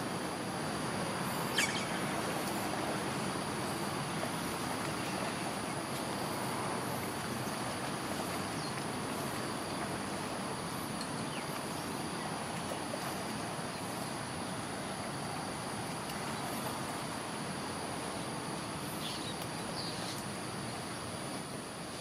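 Outdoor ambience of insects buzzing in a steady high drone over a continuous background noise, with a few short bird calls, one about one and a half seconds in and a couple near the end.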